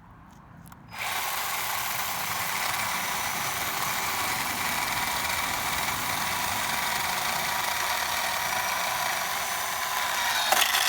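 WORX 20V cordless 10-inch chainsaw's electric motor starting about a second in and running steadily with a constant whine. Near the end the sound changes, with a few clicks.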